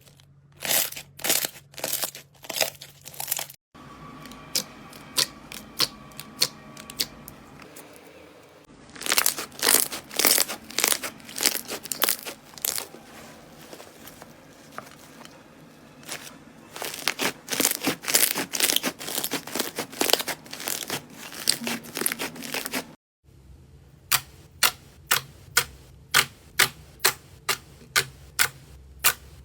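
Slime being squeezed and pressed by hand, giving runs of sharp crackling pops and clicks, in several short clips that cut abruptly from one to the next.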